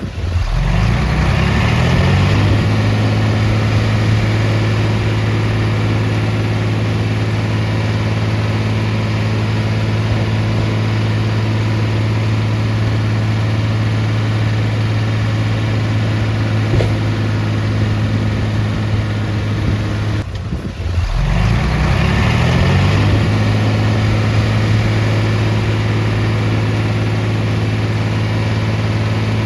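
Heavy equipment diesel engine revving up over about two seconds and then holding a steady high speed. About two-thirds of the way through it drops away for a moment, then revs up again to the same steady pitch.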